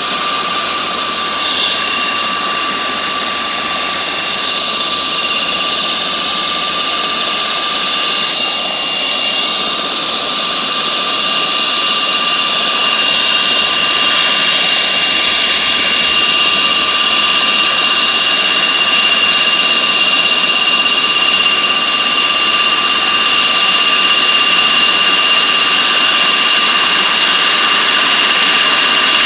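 Leonardo (Agusta) AW109SP helicopter's twin Pratt & Whitney PW207C turboshafts running on the ground with the rotors turning: a steady turbine whine with two high tones over rotor and exhaust noise, slowly getting louder.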